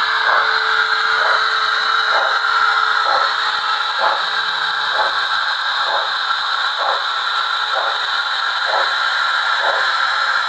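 Gauge 1 Märklin T 18 model steam locomotive running slowly, its ESU LokSound 4 XL sound decoder playing steam chuffs about once a second over a steady hiss. A steady hum stops about four seconds in.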